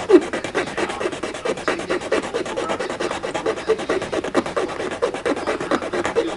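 Plastic being scraped down by hand in quick back-and-forth strokes, about eight a second, to make clearance on a 1/64 scale diecast car's model-kit chassis so the new wheels fit.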